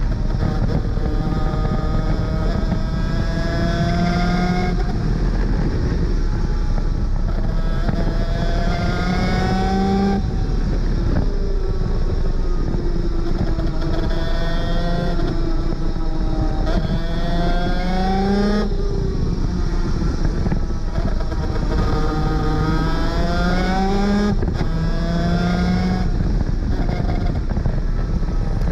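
250cc two-stroke superkart engine at full throttle. Its pitch climbs through each gear and drops sharply at each upshift, several times over, above a constant low rumble.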